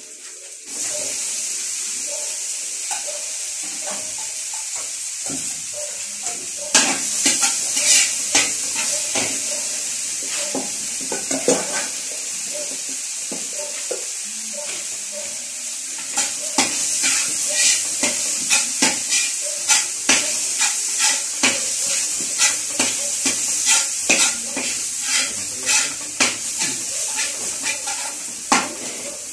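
Food tipped into hot oil in a large wok sets off a loud sizzle about a second in. From about seven seconds in, a spatula scrapes and clatters against the wok in quick, repeated stir-fry strokes, with a lull in the middle, while the frying hisses on.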